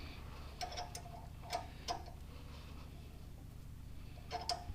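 Light metallic clicks and clinks from a wrench being set on and worked against a thread tap in the exhaust manifold's EGR port. A few scattered clicks come first, then a quicker run of clicks near the end.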